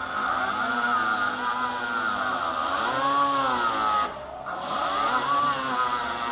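Small handheld air tool running against a body panel, its pitch rising and falling as the load changes. It stops briefly about four seconds in, then starts again.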